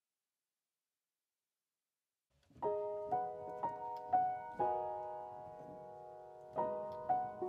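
Silence, then background piano music starts about two and a half seconds in: a slow melody of single notes, with one held chord in the middle.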